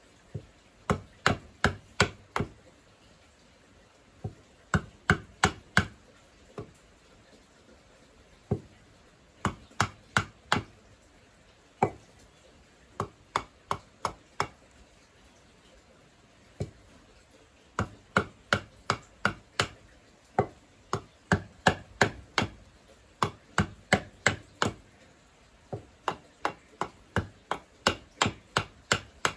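Hatchet chopping into a wooden cup blank held on a stump block, shaping it: sharp chops in quick runs of four to six, about three a second, with short pauses and a few single strokes between runs.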